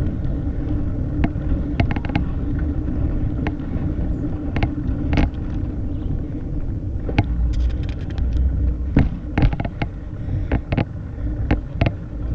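Bicycle rolling on asphalt, picked up by a bike-mounted action camera: a steady low rumble of wind and tyre noise, with scattered clicks and rattles from the bike.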